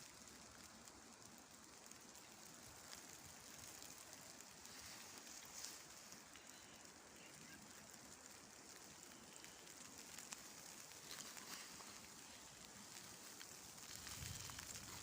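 Faint patter of precipitation falling in a convective snowstorm: a soft, even hiss scattered with many tiny ticks. A brief low rumble comes near the end.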